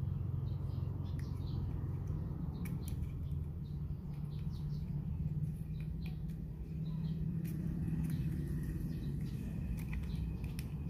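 Scattered small plastic clicks as a cable tie is fed through the hole of a plastic suction-cup mount and handled. Under them runs a steady low background hum, with faint bird chirps.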